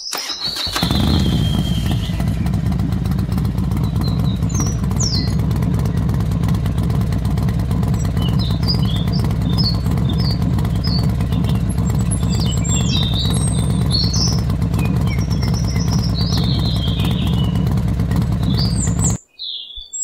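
Motorcycle engine sound running steadily, starting about a second in and cutting off suddenly near the end. Birds chirp throughout.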